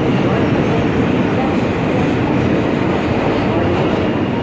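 New York City subway train running on track: a loud, steady rumble and rattle of wheels and rails.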